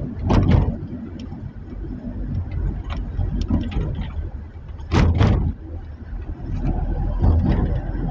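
Car driving through floodwater: a steady low rumble with short, sharp noises about half a second in and twice in quick succession about five seconds in, plus a few smaller ones.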